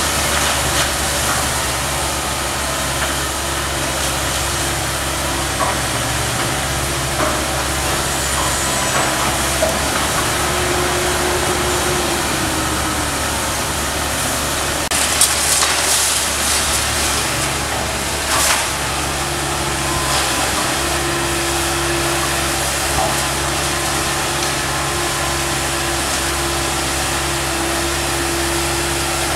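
Komatsu PC160LC hydraulic excavator's diesel engine running steadily under load, with a higher whine coming in twice, once about a third of the way through and again through the second half. Over it, wood splinters and debris knock and crash as the demolition pole pulls the house's timber framing apart, loudest in a burst just past the halfway point and in one more sharp crack shortly after.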